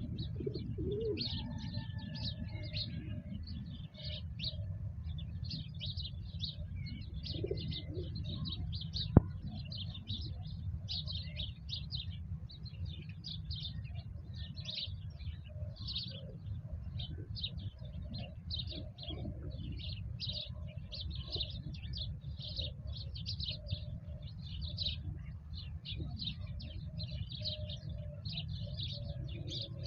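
Many small birds chirping rapidly and without pause, with a dove cooing now and then, over a steady low rumble. A single sharp click about nine seconds in.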